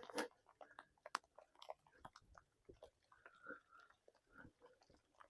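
Near silence, with faint scattered clicks and crackles and a sharper click about a second in.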